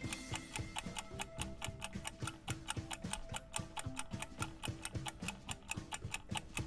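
Clock-ticking sound effect counting down a quiz answer timer: even, sharp ticks, about four a second.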